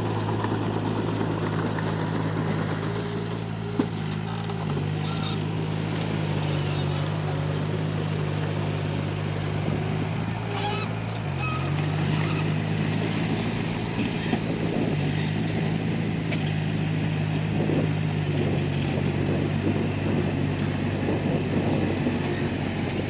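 Komatsu D31P bulldozer's diesel engine running steadily under work, with a brief dip in engine pitch about eleven seconds in, then back up, and a few scattered clanks.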